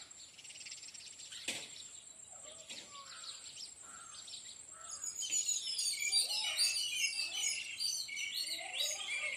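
Small birds chirping and twittering, thin at first and then a dense run of many overlapping quick high chirps from about halfway through.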